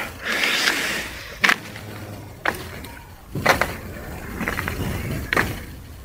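A series of sharp, short knocks roughly one a second, after a rustling noise at the start, like the steps and handling of someone walking with a handheld camera.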